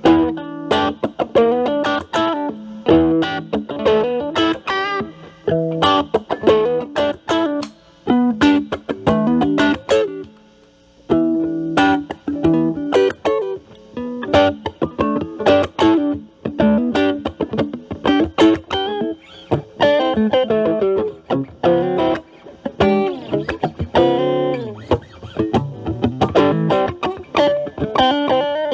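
Stratocaster played through an Ibanez Super Metal mini distortion pedal, drive knob at about 11 to 12 o'clock, into a Marshall Valvestate amplifier's clean channel: picked phrases of separate notes, with a short pause about ten seconds in.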